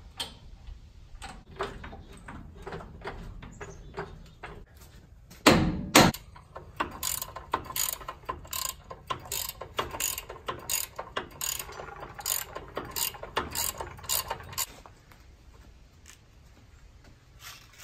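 Hand ratchet wrench clicking in repeated short strokes as a nut on the upper control arm's ball joint is tightened. Two loud knocks come about five and a half and six seconds in, before the run of clicks.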